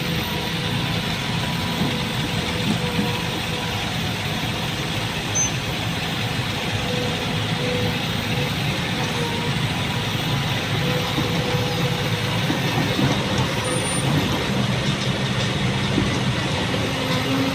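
Diesel engine of heavy machinery running steadily, a continuous low drone with mechanical rattle over it.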